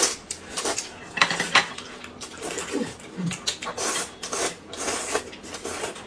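Close-up eating sounds: noodles slurped and chewed in a string of short slurps, with chopsticks clicking against a plate.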